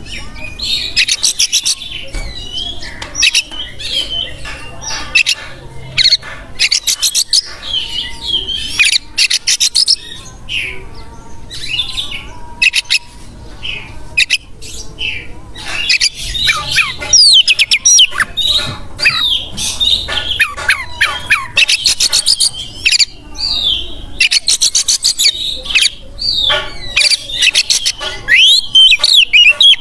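Oriental magpie-robin (kacer) singing a loud, varied song: quick whistled phrases and chattering runs of rapidly repeated notes, coming in bursts with short pauses between them.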